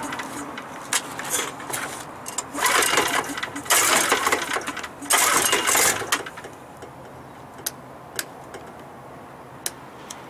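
Yamaha EF2800i inverter generator being pull-started: several loud pulls of the recoil starter in the first six seconds, each about a second of the engine cranking, without it catching. Then a few light clicks.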